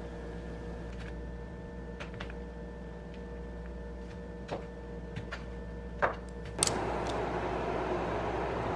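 Chef's knife cutting carrots on a plastic cutting board: a few scattered sharp taps as the blade goes through and meets the board, two louder knocks just after the middle. Then a steady hiss of room noise rises and runs on to the end.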